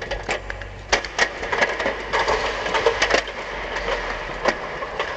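Irregular clanks and knocks of hands and boots on the rungs of a metal ladder against a wooden telegraph pole as someone climbs it in a safety harness, busiest in the middle.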